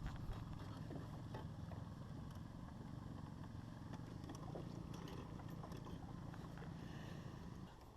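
Boat motor running steadily at low speed, a low hum that drops away shortly before the end.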